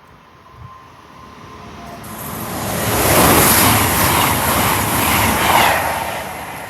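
Diesel multiple unit passing through at speed: a rushing rail and engine noise swells up, stays loud for a few seconds, then fades away.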